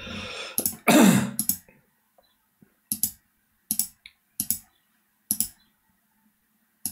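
Computer keyboard keystrokes: about half a dozen separate taps spread out over several seconds, after a short vocal sound from the typist in the first second and a half.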